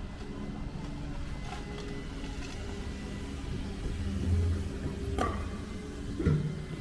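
Diesel engine of a Volvo excavator running steadily at a roadworks site, swelling briefly about four seconds in. Two sharp knocks from the work sound about five and six seconds in.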